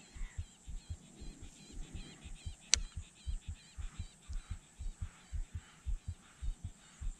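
Low, even thumping at about four beats a second, with one sharp click about two and a half seconds in.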